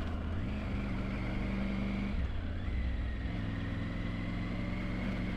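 Triumph Tiger 900 Rally Pro's three-cylinder engine running under way, its note stepping up and down a few times with throttle and gear changes.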